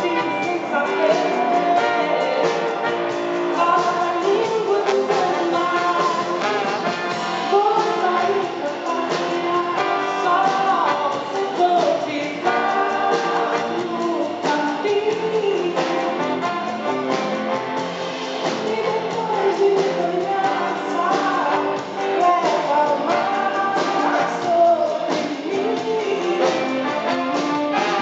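A woman singing a Brazilian popular song live into a microphone over instrumental accompaniment, her melody line rising and falling continuously.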